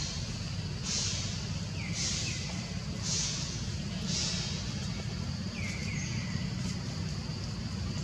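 Outdoor woodland ambience: a steady low rumble, with high hissing calls repeating about once a second for the first few seconds and a few short falling chirps.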